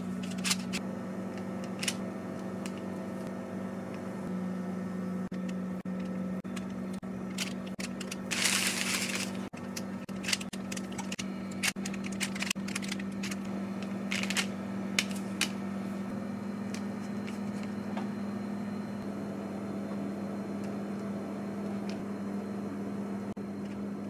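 Scattered light clicks and taps of gloved hands and a knife working cookie dough on a parchment-lined metal baking tray, with a second-long burst of noise about eight and a half seconds in, over a steady low hum.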